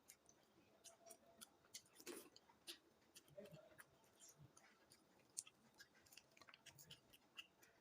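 Faint eating sounds: a person chewing food, with scattered small clicks and crunches.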